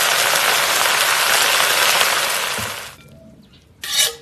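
Choy sum stir-frying in a hot wok, a loud steady sizzle that dies away about three seconds in as the cooking ends. Near the end a metal spatula clanks sharply against the wok, with a short metallic ring.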